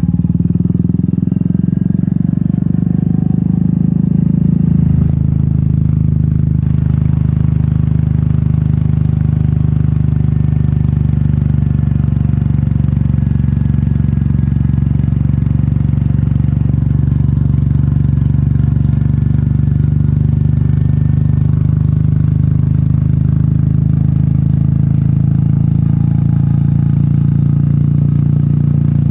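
Royal Enfield Meteor 350's single-cylinder engine running under way through an aftermarket sport exhaust. The engine note shifts about five seconds in, then holds a steady cruising thump.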